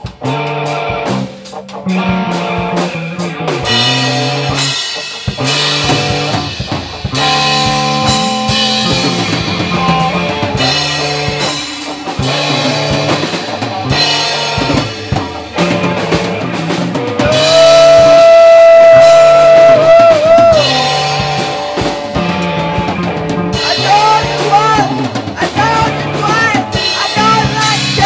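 Instrumental rock jam on drum kit, bass guitar and guitars, the bass walking a repeating riff under steady drumming. A lead guitar holds one long, bent note loudly in the middle, then plays short bent notes near the end.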